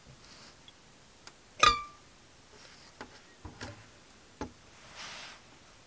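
Metal tools and a copper blank handled on a wooden tabletop: one sharp knock with a brief metallic ring, a few lighter clicks and taps, and a couple of short soft scrapes.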